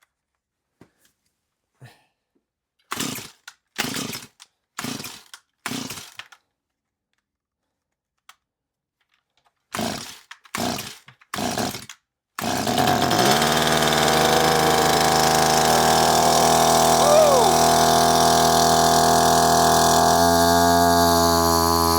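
Stihl MS180c two-stroke chainsaw being pull-started: four quick rope pulls, a pause, three more pulls, then the engine catches about twelve seconds in and keeps running steadily. The owner had suspected the engine was flooded.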